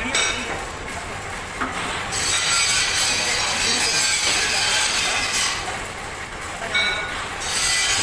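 Steady machine noise with no clear engine note. A high hiss comes in about two seconds in, drops away for a stretch and returns near the end.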